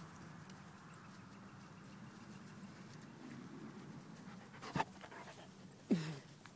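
Dog panting, with a sharp click a little before a short, falling whine near the end.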